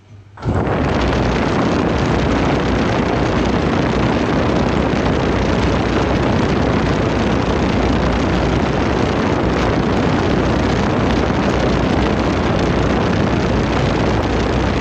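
Loud, steady rushing noise from a smartphone spinning in a lathe chuck at 1800 rpm: air buffeting the phone's own microphone as it whirls, setting in suddenly about half a second in as the spindle comes up to speed.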